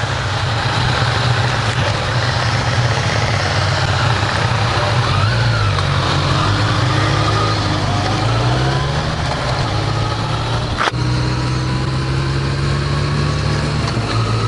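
Honda CB1100EX's air-cooled inline-four engine pulling away and accelerating, its note rising in pitch through the gears and then holding steady, with wind noise rushing over the microphone. A single sharp click late on.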